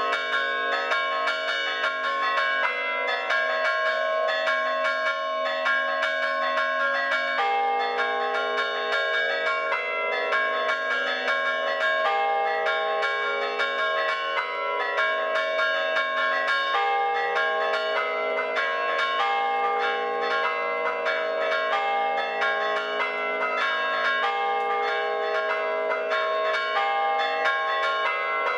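Several church bells chimed by hand with ropes, struck in a quick, continuous pattern of overlapping tones.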